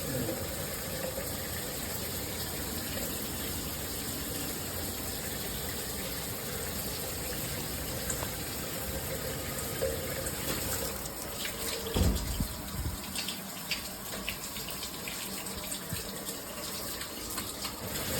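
Hibbent all-metal shower head spraying water in a steady hiss. About two-thirds of the way through there is a low thump, followed by a few irregular knocks and clicks.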